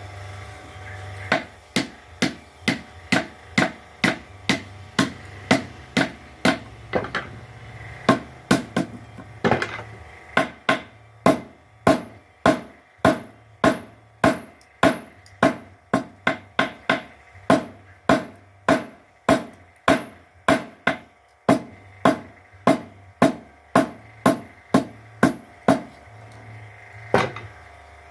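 Blacksmith's power hammer forging steel: a steady run of ringing metal blows, about two a second, over a low motor hum, pausing briefly twice.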